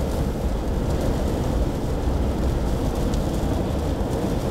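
Hurricane-force wind blowing hard against the microphone: a loud, steady low rumble of wind noise.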